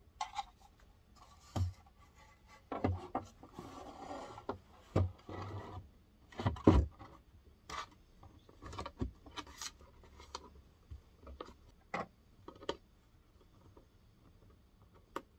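A wooden cabin panel being handled and fitted back into place against a wooden bulkhead: irregular knocks and clicks of wood on wood, with stretches of rubbing and scraping about three to six seconds in and the loudest knock near seven seconds.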